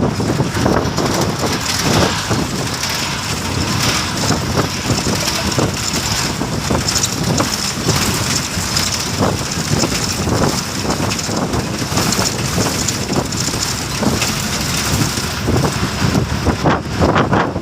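Steady rushing noise of a moving road vehicle, with wind fluttering on the microphone.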